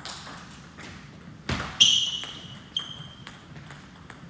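Table tennis rally: the ball clicking sharply off bats and table, with the loudest hit about a second and a half in, followed by a high squeak, then a few lighter clicks as the point ends.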